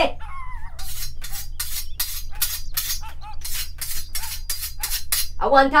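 A rapid run of short metal-on-metal strokes against a machete blade, about four a second, starting about a second in and lasting some four seconds.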